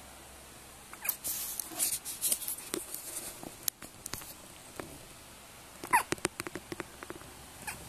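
A baby hiccuping: short, sudden hiccups, the sharpest one about six seconds in with a brief squeaky catch of the voice. Rustling of movement starts about a second in.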